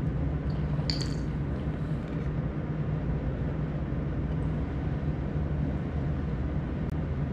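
Steady low machine hum, with a short sharp click about a second in.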